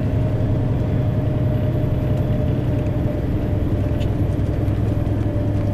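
Scania R500 truck's diesel engine heard inside the cab, a steady low drone with a thin steady whine over it. It is labouring under a 61-tonne load, and the truck is not pulling well.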